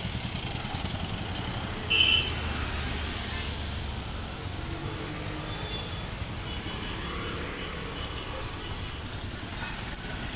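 City road traffic of cars, motorcycles, scooters and auto-rickshaws: a steady engine rumble with road noise. A short high beep sounds about two seconds in, and a sharp click comes near the end.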